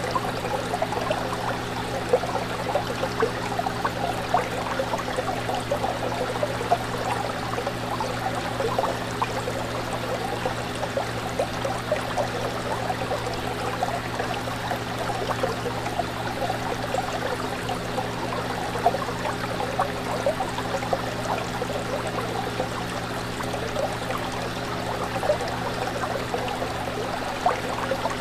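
Fish tank water bubbling and trickling without a break, over a steady low hum.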